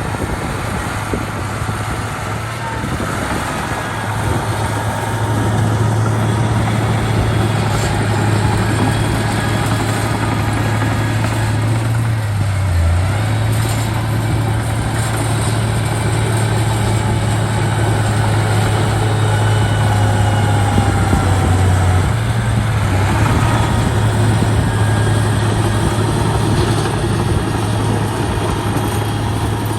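Heavy construction machine's diesel engine running steadily, its note dipping briefly twice, near the middle and about two-thirds of the way through.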